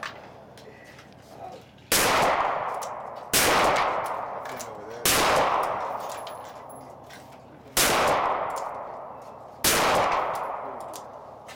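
.38 revolver fired one-handed, five shots at uneven gaps of about one and a half to three seconds. Each sharp report trails off slowly over a second or more.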